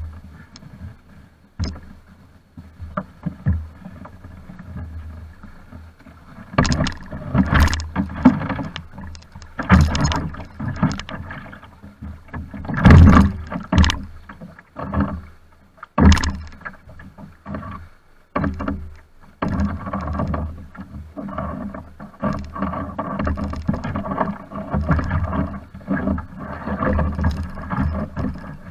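Water rushing and splashing around the hull of a Pro Boat Blackjack 42 radio-controlled boat, heard from its deck, in uneven surges that grow after about six seconds and peak around thirteen seconds in.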